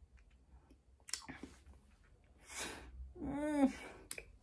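A woman reacting to extremely sour candy in her mouth. There are a few wet mouth clicks, then a hissing breath, then a short pained whimper that rises and falls in pitch.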